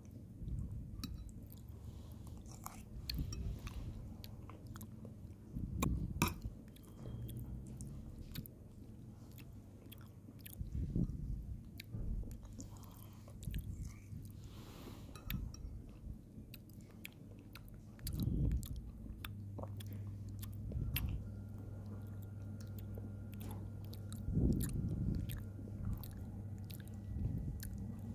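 Close-up chewing and mouth sounds of a person eating halim, a thick wheat porridge, from a metal spoon, with many small clicks and smacks throughout. A low steady hum comes in about two-thirds of the way through.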